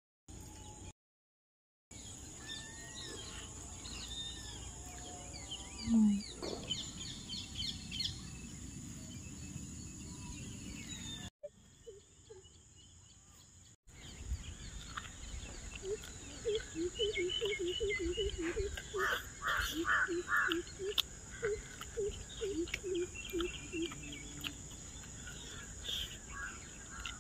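Outdoor rural ambience with birds chirping and calling, and a steady high-pitched hum underneath. The sound drops out briefly near the start and again about halfway through.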